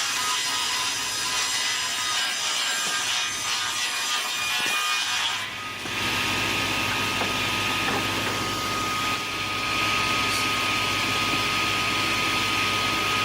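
Sawmill saw machine cutting wood, a steady dense sawing noise with a constant high whine; it dips briefly about five and a half seconds in, then carries on.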